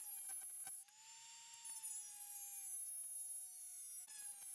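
Handheld rotary tool spinning a small disc at high speed: a steady high whine. Its pitch rises about a second in, then sinks slowly, and rises again near the end, with a few light clicks near the start.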